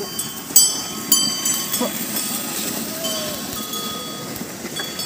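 Bells on a pair of yoked bullocks clanking and ringing as the animals walk. Two sharp strikes about half a second and a second in ring on, then fewer, fainter clinks follow.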